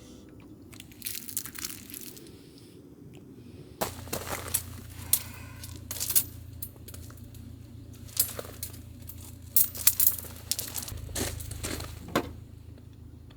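Rustling and crinkling handling noises with many sharp, irregular clicks, over a low steady rumble.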